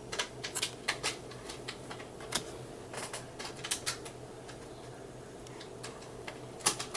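Baseball trading cards being flipped and handled, a run of irregular sharp clicks and snaps, over a faint steady hum.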